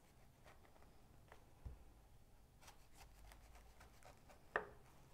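Near silence with faint clicks and scraping from a kitchen knife cutting down the side of a pomegranate on a wooden cutting board. There is a soft thump a little before halfway and a sharper click near the end.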